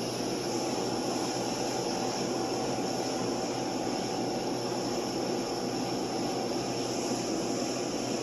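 Steady room noise: an even rushing hiss with a low hum underneath, with no distinct knocks or clicks.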